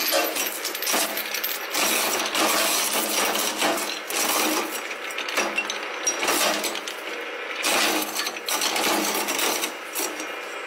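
Twin-shaft shredder's interlocking cutter discs crushing hard, clear chunks: a continuous run of crunching, cracking and clinking, with sharp hits coming several times a second as the pieces break up.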